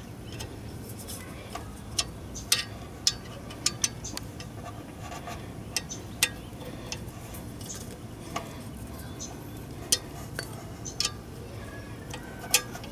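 Allen key clinking against the bolts of the turbo's oil feed fitting as they are tightened: scattered sharp metallic clicks at irregular intervals.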